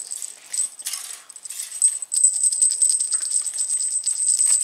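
Foil wrapper crinkling as a chocolate bunny is unwrapped: a dense, rapid crackle of small rustles. A thin, high, steady whine runs under it from about half a second in and cuts off suddenly near the end.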